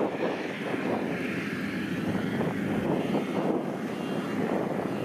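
FMWorld WD102PRO rice combine harvester running steadily while it cuts standing rice, a continuous even engine drone.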